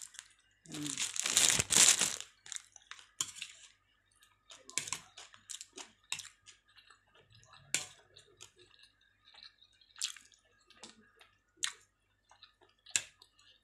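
Plastic bag crinkling loudly for about a second and a half as glutinous rice is pulled out of it, then scattered sharp clicks of a spoon and fork against a plate, with close-up eating sounds.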